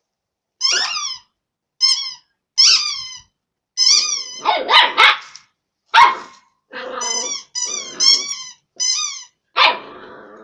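A squeaky rubber duck squeaked over and over as a puppy bites it, each squeak short and falling in pitch, about eight in all. Between the squeaks the puppy gives a few barks and growls, the loudest around the middle and near the end.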